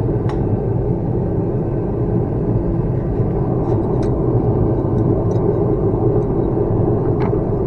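Steady rumbling noise of a forge burner running, with a few faint light clinks of metal.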